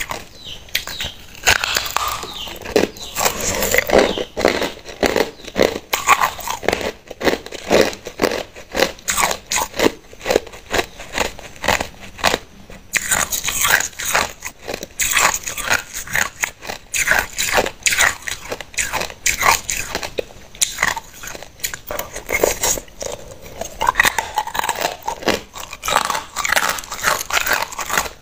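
Chunks of hard clear ice being bitten and crunched between the teeth: a dense, irregular run of sharp cracks and crunches.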